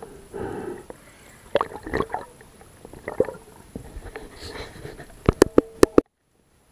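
Muffled underwater sounds heard through a camera housing: gurgling water with scattered knocks and clicks, then a quick run of sharp clicks about five seconds in before the sound cuts out.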